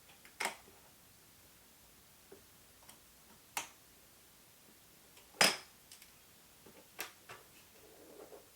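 Sharp clicks and taps of small metal parts as tiny screws are fastened into a camera T-adapter: four distinct clicks with fainter ticks between them, the loudest a little past the middle.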